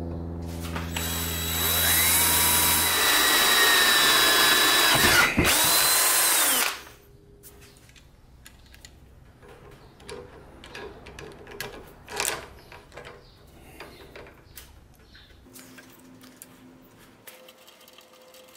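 Cordless drill boring through a metal bracket on a belt grinder, the bit cutting with a high, shrill whine that bends in pitch under load, stopping abruptly about seven seconds in. After that come faint clicks and knocks of small parts being fitted.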